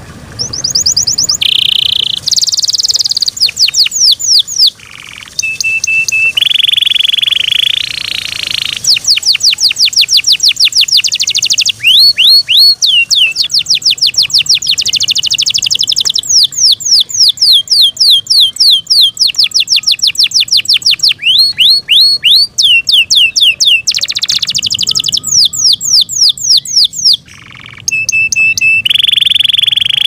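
Yorkshire canary singing a long, loud song that starts about half a second in: fast trills of quickly falling notes alternating with short buzzy rolls.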